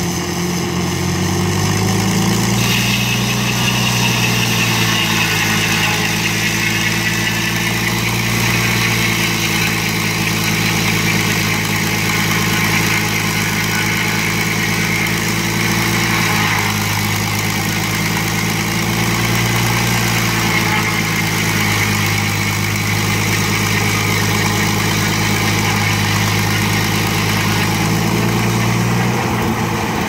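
Engine-driven circular sawmill cutting through a log. The power unit's engine runs steadily under load, with the blade's rasp through the wood laid over it from about two seconds in. Near the end the rasp stops and the engine note changes as the cut finishes.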